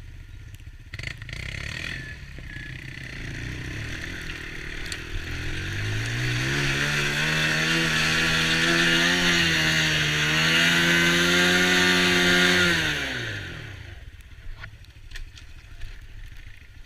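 Small ATV engine rising in pitch and getting louder as the quad accelerates, running at high revs for several seconds, then dropping in pitch and fading away near the end.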